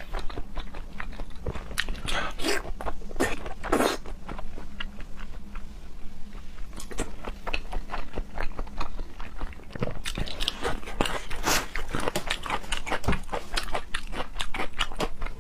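Close-up eating sounds: a person biting and chewing crunchy food, with irregular wet clicks and crackles of the mouth.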